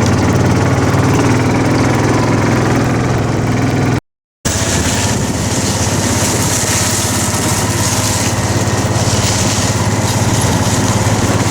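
Gator utility vehicle's small engine running at a steady speed while driving. The sound cuts out completely for a split second about four seconds in, and afterwards a rushing hiss is stronger over the engine.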